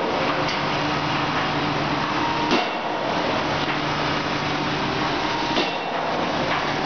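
Crawler crane pile-driving rig at work: the crane's diesel engine runs steadily while the pile hammer strikes twice, about three seconds apart, each a sharp heavy impact.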